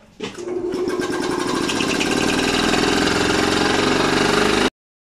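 Electric tank-mounted piston air compressor starting up about a quarter-second in and running steadily with a fast even chugging, building pressure in the tank. It cuts off suddenly near the end.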